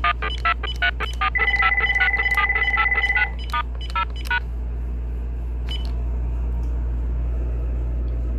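Uniden cordless phone handset beeping as its keys are pressed: a quick run of short electronic beeps, with a held two-pitch tone from about a second in to just past three seconds, the beeps stopping about four and a half seconds in. A steady low hum runs underneath.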